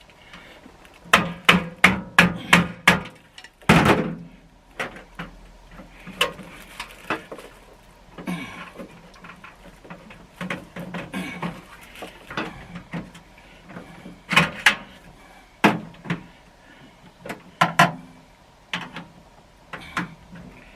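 Hammering and knocking during work on a tool box. There is a quick run of about five blows about a second in, a heavier blow near four seconds, then scattered knocks and clunks.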